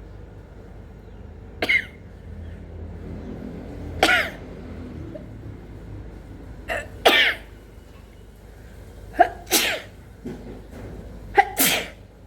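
A person sneezing five times in a row, a couple of seconds apart, the last three each with a short lead-in before the main sneeze. The sneezes are brought on by sniffing chhinkni (sneezing) powder.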